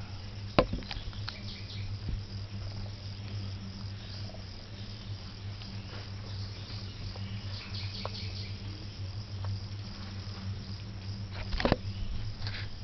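Rainforest insects chirring in a steady chorus over a low steady hum. A sharp click about half a second in, and a short burst of handling noise near the end.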